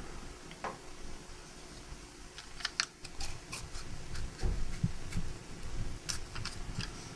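Scattered small clicks and taps from a large plastic syringe being handled and pressed against an arm, in a cluster a few seconds in and again near the end, over quiet room tone.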